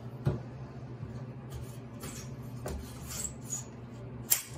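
Aluminium leg tube of a tub transfer bench being pushed into its frame socket: light metal scraping with a few sharp clicks, the loudest a quarter second in and another near the end as the leg's push-button pin snaps into its hole.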